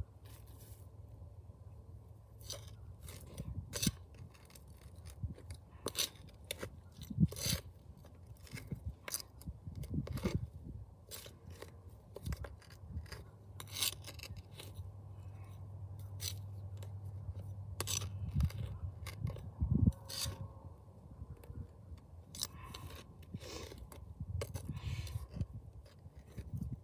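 A small hand tool scraping and digging into soil inside the hollows of concrete cinder blocks, with irregular short scrapes and clicks of metal against concrete and grit. A steady low hum runs underneath.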